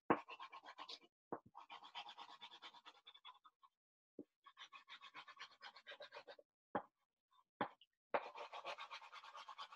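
Sidewalk chalk rubbed on its side across paper, scraping in quick back-and-forth strokes in several stretches, with a few sharp taps in the pauses.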